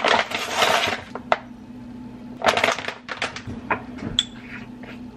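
A paper sugar bag crinkling loudly as it is handled, in two spells, the first at the start and the second about two and a half seconds in. A few light clicks follow near the end as a glass spice jar is handled and opened.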